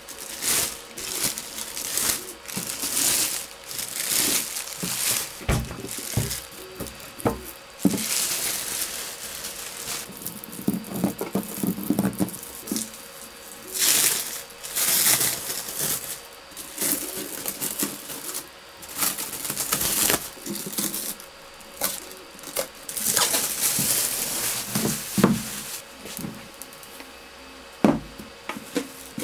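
Plastic wrap crinkling and tearing as it is peeled off a yellow acrylic lid, in irregular rustling bursts, with a few knocks of hard plastic.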